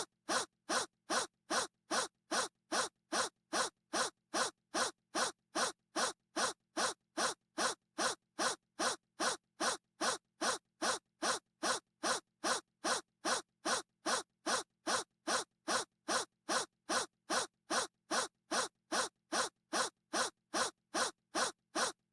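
A short breathy gasp repeated over and over at a perfectly even pace, a little over two a second, with silence between each one, like a single gasp sound looped.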